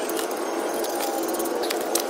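A few light metallic clinks of bolts and tools against the steel winch plate as it is fitted into the bumper, the clearest near the end, over a steady background hum.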